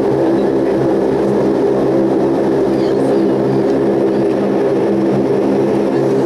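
Saab 340's twin turboprop engines running, heard from inside the cabin beside the left engine: a steady, loud drone with a stack of even propeller tones.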